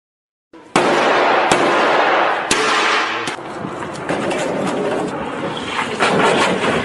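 A fast sports car passing with loud rushing noise and four sharp cracks in the first few seconds, which are typical of exhaust pops. The noise swells again near the end.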